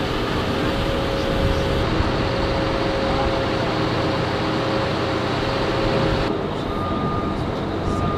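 Diesel engine of a military wheel loader with forklift attachment running steadily at work. About six seconds in the sound changes abruptly, and near the end a reversing alarm beeps twice, about a second apart.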